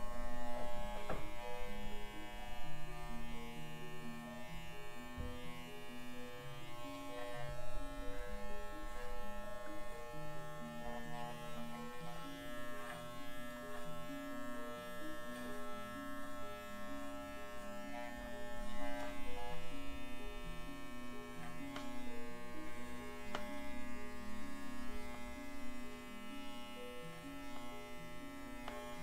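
Electric dog grooming clippers running with a steady buzz, while background music with a stepping melody plays underneath.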